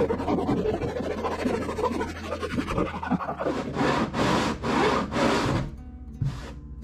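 Hand file rasping at dried glue along the deck-hull seam of a wooden kayak. Quick scratchy rubbing for about three seconds, then four long back-and-forth strokes in about two seconds, and one short stroke near the end.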